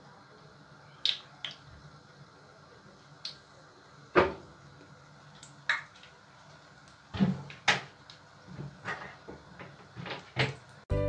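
Buñuelo batter frying in hot oil in a non-stick frying pan: a faint steady sizzle with sharp, irregular pops and clicks, the loudest about four seconds in.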